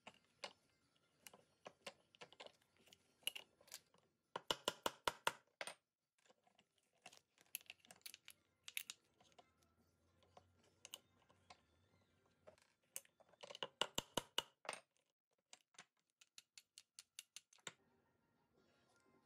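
Wooden toy parts being handled and worked on a hardwood workbench: scattered light wooden clicks and knocks, with two bursts of quick tapping, each lasting about a second, about a quarter of the way in and again about three quarters of the way in.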